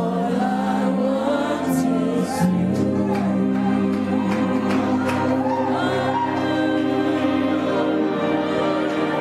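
Gospel worship music: many voices singing slow, gliding lines over sustained held chords.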